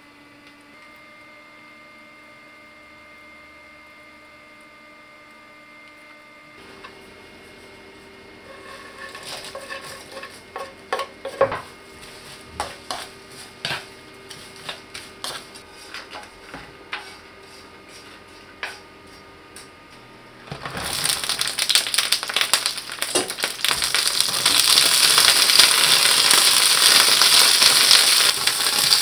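Dried anchovies being dry-stirred with a wooden spatula in a nonstick frying pan, making light scraping and irregular clicks and taps. About 20 seconds in, a loud, steady sizzle starts as shishito peppers fry in oil, stirred with chopsticks.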